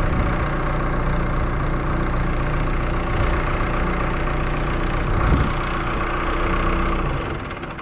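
A heavy vehicle's engine idling steadily, with a single clank about five seconds in. The engine sound drops away near the end.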